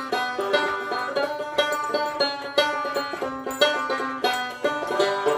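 Banjo music: quick runs of plucked notes over a steady beat.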